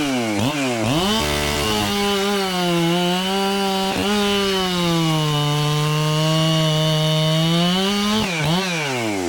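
Modified Husqvarna 372 two-stroke chainsaw blipped in quick revs, then held wide open for about six seconds, its pitch sagging a little in the middle, before dropping back with a few more quick revs near the end. The saw is not running stock: it revs well beyond what a stock 372 does.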